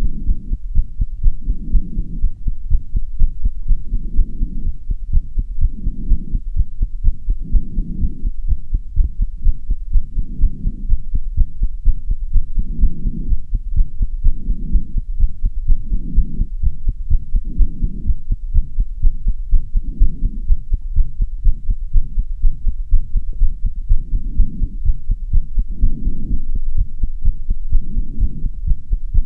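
A person's heartbeat beating fast with rapid low thumps, raised after hard exercise (half an hour of running up stairs). Slower swells about every two seconds run under it, the heavy breathing of the same exertion.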